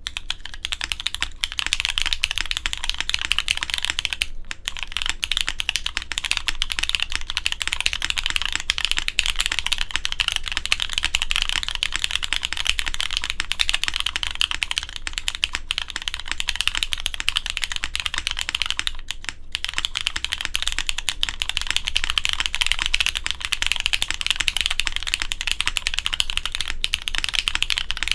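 Continuous fast typing on a J-02 mechanical keyboard fitted with Cherry MX2A Nixie switches on an Ultem plastic plate: a dense stream of keystrokes, broken by short pauses about four and nineteen seconds in.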